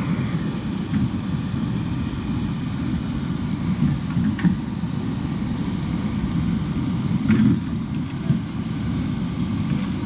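Low, gusting rumble of wind buffeting the microphone, over the even rush of river water streaming white around a wooden obstacle in the current.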